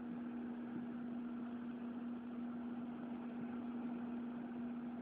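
Steady mechanical hum with one constant low tone over a faint even hiss.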